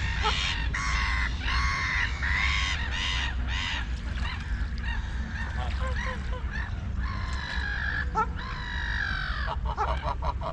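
Waterfowl honking over and over: a quick run of short honks at first, softer, shorter calls in the middle, then two longer drawn-out honks near the end, with a steady low rumble underneath.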